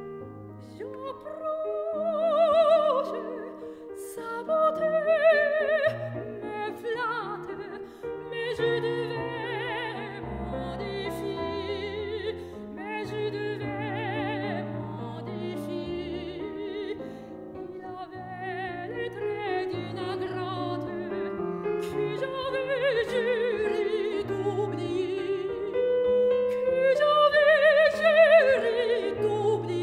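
Background music: operatic classical singing, long held notes with wide vibrato, over piano accompaniment, swelling louder near the end.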